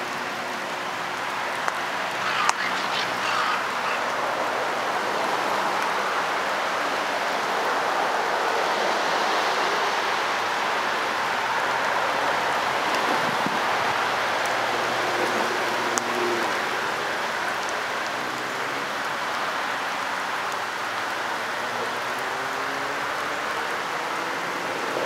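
Steady rain falling, an even hiss, with a couple of brief sharp clicks.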